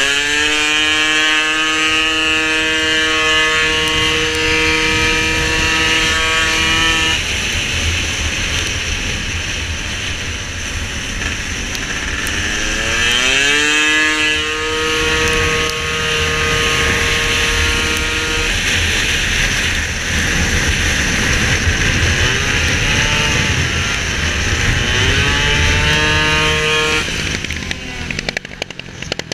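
Racing Piaggio SKR scooter engine at full throttle: the pitch climbs quickly and then holds on one high, steady note as the variator keeps the revs up, three times, with lulls between. A steady rush of wind and road noise runs underneath.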